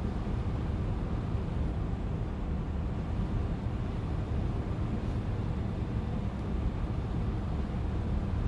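Steady low background rumble with no distinct events: room tone.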